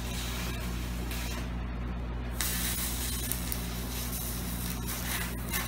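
Stick (arc) welder crackling and hissing as a flux-coated rod welds the axle tubes to the center section of a Ford 8.8 rear axle housing. The arc drops out about a second in and strikes again about a second later.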